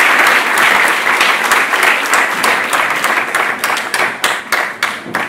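Audience applauding. The clapping fades and thins out toward the end into a few separate claps.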